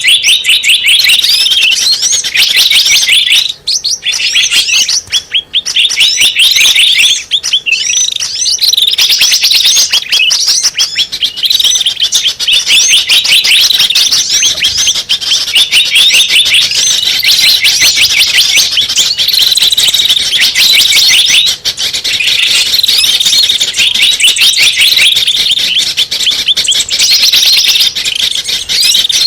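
Bird-lure call for small birds: a loud, dense, unbroken stream of rapid high chirps and trills, the same phrases repeating over and over.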